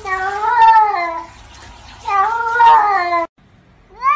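A cat giving two long, wavering meows about a second apart. Near the end a new meow starts, rising in pitch.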